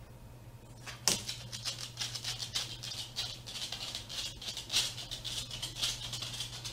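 A dog moving about on a hardwood floor: a sharp click about a second in, then a dense, uneven run of quick clicks and jingling rattles. A low steady hum sits underneath.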